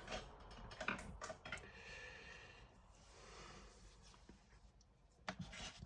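Faint clicks of the model being handled, and for about a second and a half a faint, high, steady whine from the small electric motor of an N gauge model locomotive running on its test current.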